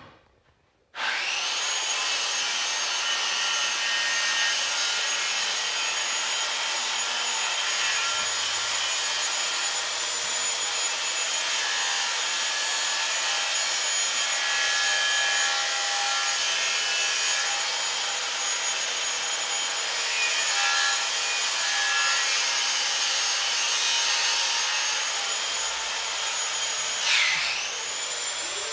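A small high-speed electric motor runs with a steady whine over a rush of noise, starting abruptly about a second in. Near the end its pitch dips sharply and climbs back.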